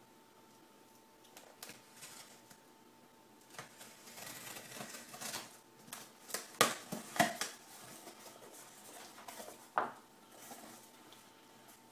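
A cardboard shipping box being opened by hand: packing tape is slit and pulled with a rasping noise from about four seconds in, then sharp cardboard cracks as the flaps are pulled open around six to seven seconds, one more crack near the end, and papers rustling inside.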